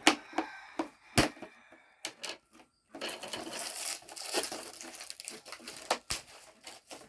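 Protective plastic film being peeled and crinkled off a plastic pet-carrier shell, with a few sharp knocks of the plastic being handled: near the start, about a second in and near the end.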